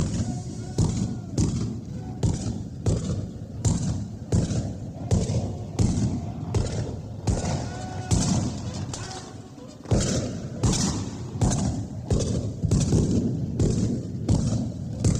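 19th-century battle ambience: a dense run of gunshots, about two a second, over a low rumble, with men shouting underneath. The firing eases briefly a little past the middle, then picks up again.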